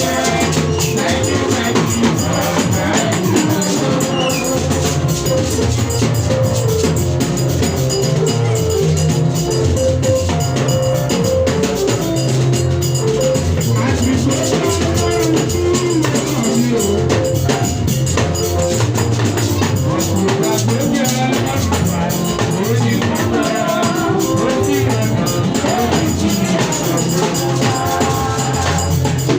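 Music with a drum kit keeping a steady beat under a bass line that steps from note to note, with melody lines above.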